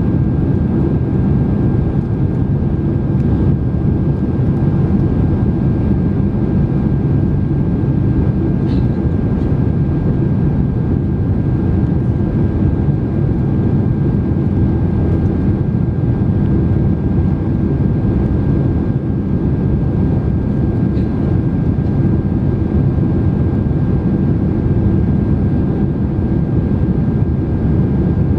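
Steady in-flight cabin noise of a Boeing 767-300 heard beside the wing: a constant low rush of engines and airflow with a thin steady whine over it, the flaps extended for the approach.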